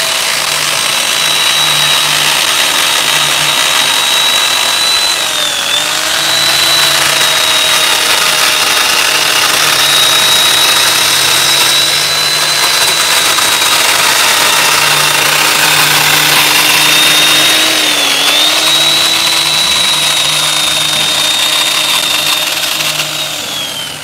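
Corded electric chainsaw running steadily as it cuts a mortise joint into a large wooden column, a high whine that dips in pitch twice under load, then winds down near the end.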